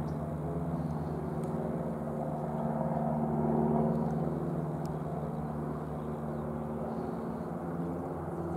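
Steady low drone with a few held low tones, swelling slightly a few seconds in.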